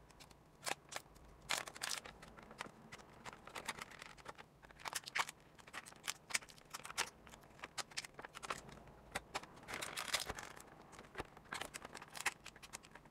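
Plastic toy packaging being cut and worked at by hand to free a tied-in action figure: irregular sharp snips, clicks and crinkling, busiest about five seconds in and again about ten seconds in.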